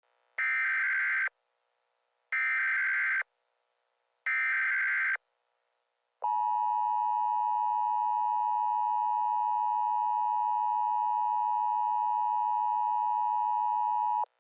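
Emergency Alert System tones: three short bursts of warbling SAME header data, about a second apart, then the steady two-tone EAS attention signal held for about eight seconds.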